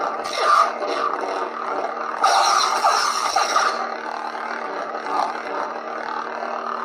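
Saberforge Venomous Fury lightsaber's sound board playing its steady electric hum from the Crimson sound font, with louder sweeping swell sounds right at the start, for about a second and a half from two seconds in, and briefly near five seconds.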